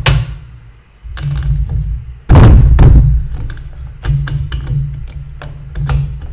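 Metal spark plug wrench clicking and knocking against a Stihl MS250 chainsaw as it is fitted over the spark plug and turned to take the plug out. One heavy thump a little over two seconds in is the loudest sound, among a run of sharp clicks.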